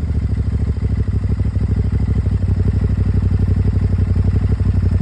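Aprilia Tuareg 660's parallel-twin engine idling steadily through its stock exhaust, with a fast, even pulse.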